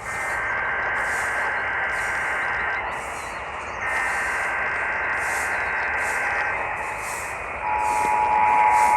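Emergency Alert System test: the SAME header data bursts, a harsh two-tone digital screech, sent twice with about a second's gap between them. Then, a little more than three-quarters of the way in, the louder steady two-tone EAS attention signal begins. All of it is heard over a radio with constant hiss.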